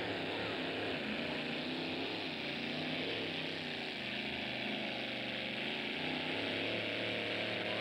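Engine of a small tractor-pulling vehicle running flat out through a pull, held at steady high revs with its drive wheels spinning.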